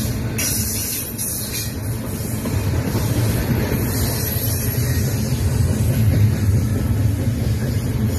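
Double-stack container train of well cars rolling past close by: a steady, heavy rumble of steel wheels on the rails, growing a little louder about three seconds in.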